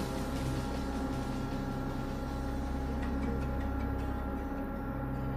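Steady low electrical-sounding hum of room tone, with a few faint taps about three seconds in.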